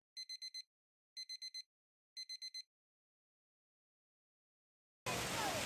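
Electronic beeper giving four quick high beeps, three times about a second apart, like a digital alarm clock. Near the end a steady rush of splashing pool water begins.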